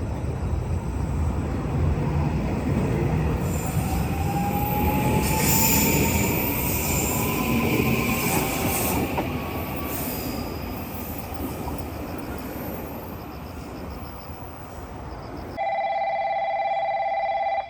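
A JR Kyushu electric train moving along the platform: wheel and rail rumble with a thin motor whine that rises in pitch as it gathers speed, then fades. Near the end the sound cuts abruptly to a steady electronic station chime.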